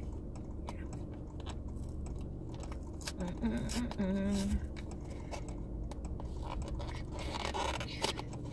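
A small cardboard blind box and its plastic wrapping being handled and torn open: a run of crinkling, crackling and scraping over a steady low hum.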